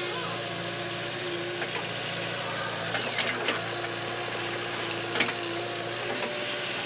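JCB backhoe loader's diesel engine running steadily while the backhoe digs, with a few sharp knocks from the bucket and linkage about three seconds in and again past five seconds.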